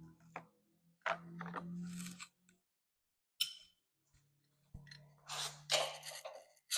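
Metal hand tools being handled on the front axle of a mini motorcycle: short scraping, rattling bursts about a second in and again near the end, with a single sharp click in between.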